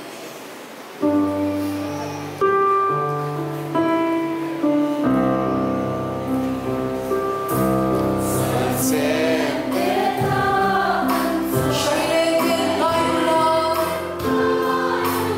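Women's choir singing a hymn. A few held instrumental chords open it, and the voices come in about five seconds in over the sustained accompaniment.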